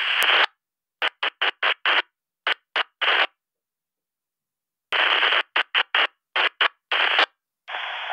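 Walkie-talkie speaker hissing static that cuts in and out abruptly in short chopped bursts, with a faint voice under the hiss near the end. It is the Retevis RB628 receiving a weak transmission that breaks up at the limit of its range.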